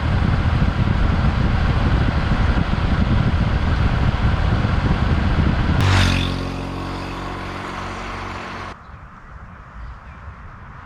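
Small single-cylinder motorcycle (Honda Super Cub 110) on the move, with heavy wind and road noise on the microphone. About six seconds in, the sound changes abruptly to a steady engine hum with a clear pitch, which drops to a quieter background near nine seconds.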